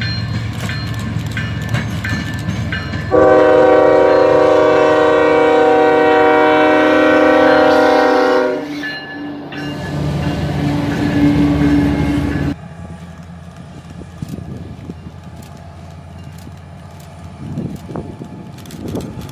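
Diesel freight locomotive sounding its multi-chime air horn in one long chord of about five seconds as a double-stack container train closes in and passes, followed by engine and wheel-on-rail noise. About twelve seconds in, the sound cuts abruptly to the quieter rumble of a distant approaching train.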